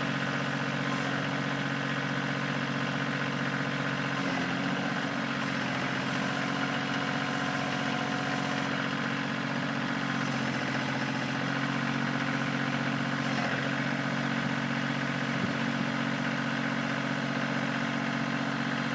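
Kioti CK2610 compact tractor's three-cylinder diesel engine running steadily.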